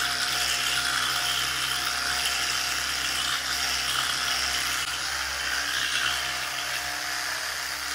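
Electric toothbrush running in the mouth while brushing the teeth: a steady, even whir that holds one pitch throughout.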